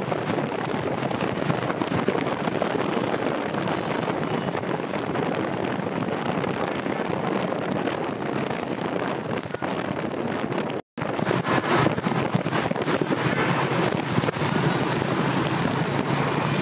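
Steady rushing noise of wind buffeting the microphone, cutting out for a moment about eleven seconds in.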